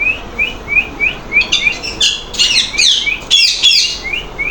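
Parrot chirping: a run of short, rising chirps about three a second, with a louder burst of harsher, falling calls in the middle.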